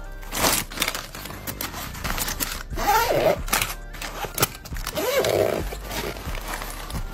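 A fabric pencil case being handled, its cloth rustling, with a zipper drawn shut, over soft background music.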